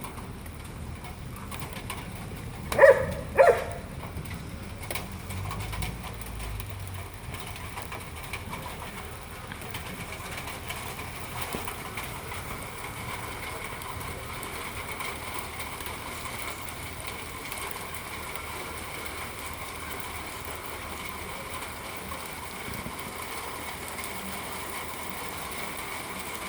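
A dog barks twice in quick succession about three seconds in. Afterwards only a steady, low background noise with a faint hum remains.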